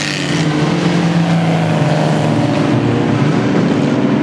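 Several speedway stock car engines running together as the pack races around the dirt oval, a steady, overlapping engine note with several pitches.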